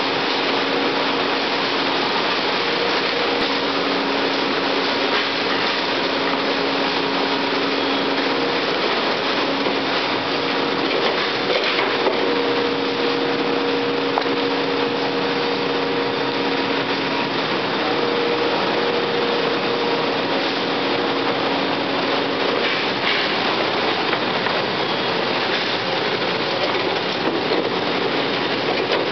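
Seybold 112 guillotine paper cutter running: a steady rushing machine noise with a hum at two pitches that fades in and out.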